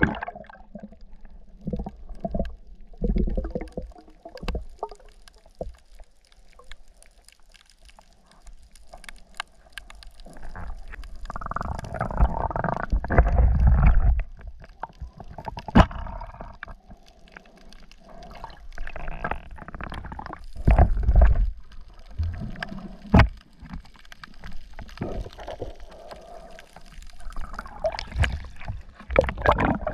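Water noise picked up by an underwater camera, swelling and fading in uneven surges, with scattered sharp clicks.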